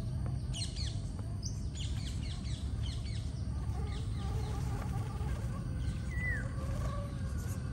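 Wild birds chirping in a quick string of short calls, then one clear down-slurred whistle near the end, over a steady low background rumble of outdoor noise.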